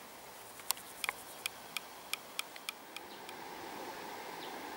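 A run of about nine sharp ticks over two seconds. Then the faint noise of a freight train behind a VL10U DC electric locomotive, growing slowly louder as it approaches.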